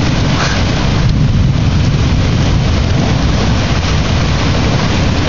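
Steady heavy rain in a thunderstorm, with wind rumbling on the phone's microphone.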